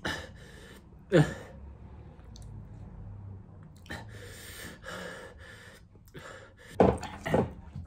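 A man sighing and breathing out hard through his mouth, his tongue burning from very spicy miso ramen: a loud falling sigh about a second in, softer huffing exhales, then two short loud voiced sounds near the end.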